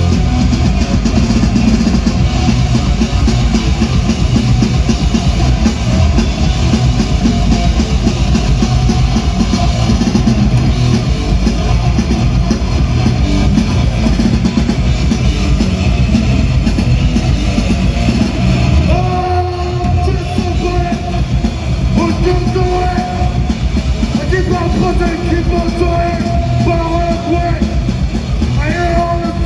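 Live band playing loud, distorted rock: electric guitars, bass and drum kit. A little past halfway the low end drops out for a moment, then held notes ring out over the band.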